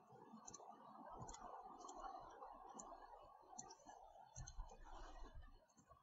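Near silence: quiet room tone with several faint computer mouse clicks spread through it.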